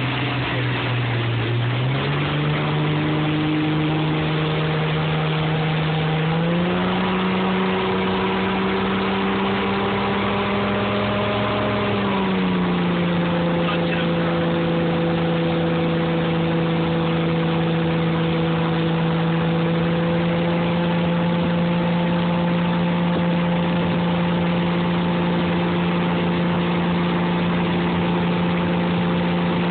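Motorboat engine running under way while towing a tube rider. It speeds up in two steps within the first seven seconds, eases back a little about twelve seconds in, then holds a steady pitch. Underneath is a steady rush of wind and water.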